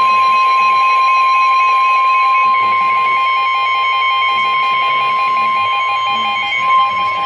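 NOAA Weather Radio warning alarm tone: one loud, steady tone of about 1050 Hz held without a break. It signals that an urgent warning message is about to be read.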